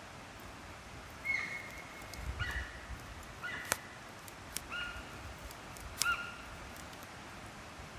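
Wood fire crackling, with sharp pops scattered through it. Over it come about five short, high-pitched animal calls, the first held about a second, the rest brief and spaced a second or so apart.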